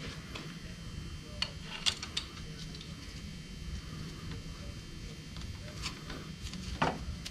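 A handful of light clicks and taps, about five, scattered over a low steady hum, the loudest near the end: hand tools and small engine parts being handled during assembly.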